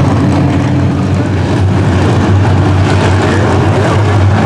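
Semi-late model stock car V8 engines running steadily, a loud continuous engine sound from several cars circling a dirt oval.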